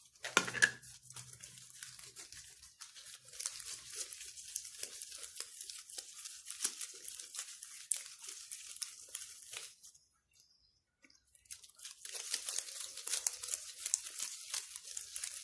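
Hands tearing yeast dough into pieces and rolling them into balls on a floured surface: a soft, crackly rustling that stops for about a second and a half partway through, then resumes.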